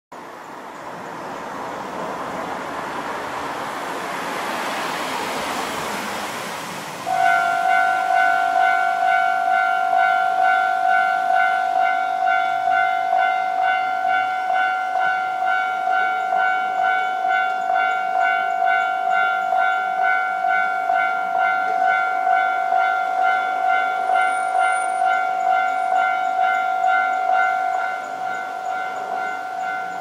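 A Japanese railway level crossing's electronic warning bell starts about seven seconds in and rings a steady ding, repeated rapidly and evenly. Near the end it drops in volume, as these crossings do once the barriers are down. Before the bell, a vehicle's passing rush swells and fades.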